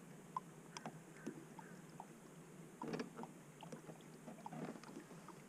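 A kayak trolling on calm water, heard faintly: a low steady hum with scattered small ticks and knocks.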